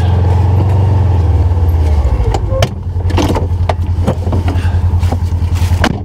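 Polaris Ranger XP1000 side-by-side's 1000 cc twin-cylinder engine idling, heard from inside its enclosed cab as a low hum that turns to a rhythmic throb about two and a half seconds in. Several knocks and clicks come in the second half as the driver's door opens and someone climbs out.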